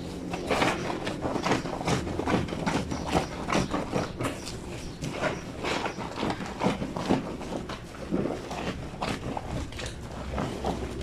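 Soapy wet blanket scrubbed by hand against the ridged granite washboard of a lavadero, in an irregular run of squelching rubbing strokes.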